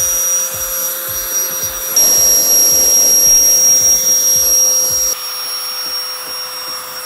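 Booster handheld battery-powered turbo jet blower running flat out, a high-pitched whine over a rush of air as it blasts water off a wet car body. The sound steps louder about two seconds in and drops back about five seconds in.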